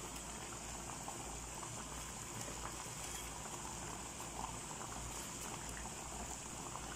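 Thickened tomato sweet-and-sour sauce boiling in a frying pan: a steady, soft bubbling with scattered small pops.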